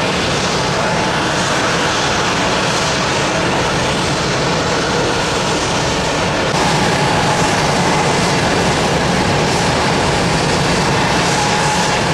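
Jet airliner engines running at takeoff power, a loud steady roar that steps up in level about six and a half seconds in.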